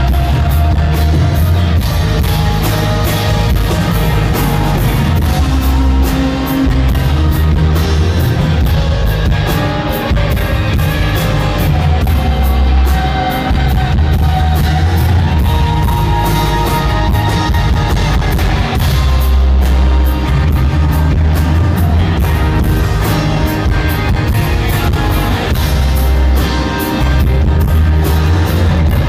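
Live band playing an instrumental passage: guitar over a drum kit, with strong bass, loud and continuous.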